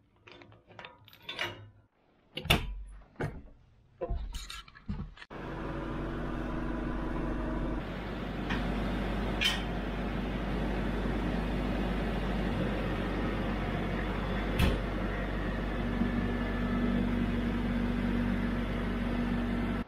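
Heavy tow chain clinking and clanking against metal as it is hooked on. About five seconds in, a Branson compact tractor's diesel engine starts running steadily under load as it tows another tractor on the chain, with a couple of sharp chain clanks.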